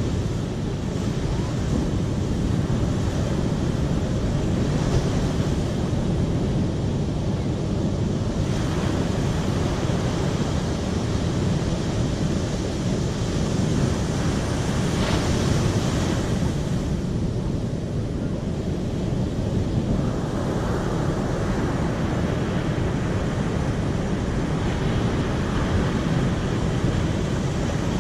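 Rushing water making a steady deep noise without pauses, with some shifts in its hiss along the way.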